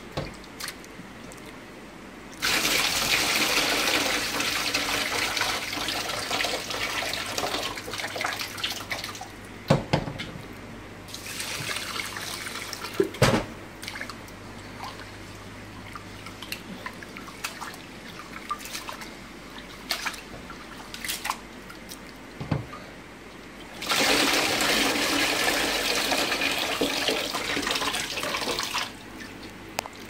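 Rice being washed by hand in a metal pot of water: two spells of water pouring, several seconds each, the second near the end as the cloudy rinse water is tipped off into a basin. Between them, quieter swishing and rubbing of the wet rice, with a few sharp knocks of the pot.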